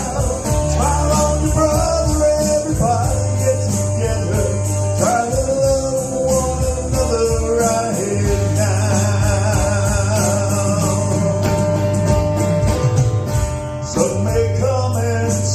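Live band playing a song, with singing over held bass notes.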